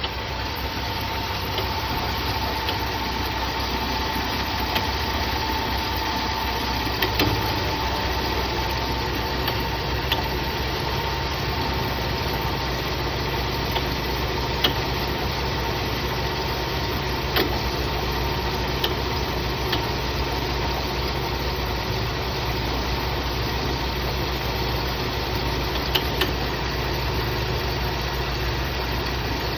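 Car engine idling with the air-conditioning compressor running, making a suspect noise that the owner cannot place between a failing AC clutch and a failing compressor. A faint whine fades out over the first several seconds, and sharp ticks come now and then over the steady running.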